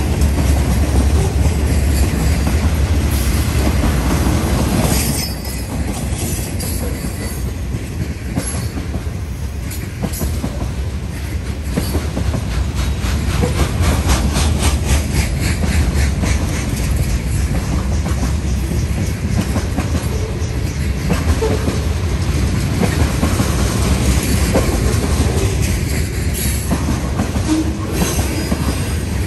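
Norfolk Southern freight train rolling past: steel wheels clicking steadily over the rail joints under a continuous low rumble, with a few short wheel squeals.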